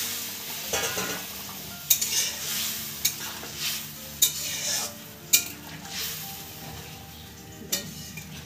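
Hot water hissing as it is poured into hot spiced oil and vegetables in a metal kadai, the sizzle dying away over the first few seconds. Then a metal spatula stirs the curry, scraping and knocking against the pan with about six sharp clicks.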